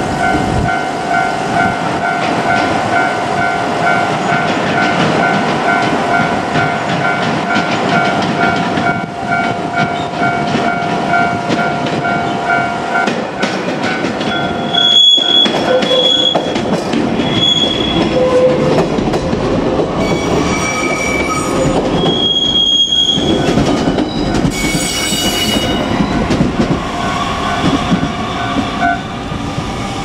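JR Kyushu 817 series electric train running over a level crossing. The crossing's warning bell rings in a steady repeating pattern for the first half, then the train's wheels give several short, sharp squeals over the running noise as it passes and pulls away.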